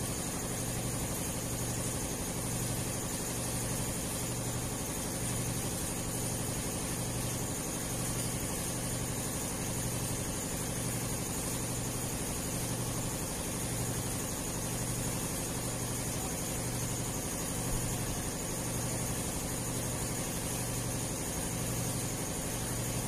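A steady low hum that swells and fades about once a second, over a constant hiss.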